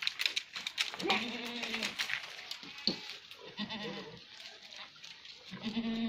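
Goats in a herd bleating, several separate calls, the longest lasting about a second.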